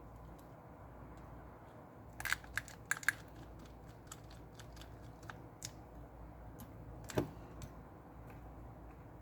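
Small sharp clicks and taps of a precision screwdriver and screws against a Samsung Galaxy S20 FE 5G's frame as its screws are fitted back in. There is a quick run of clicks about two to three seconds in and a single louder click about seven seconds in, over a faint steady hum.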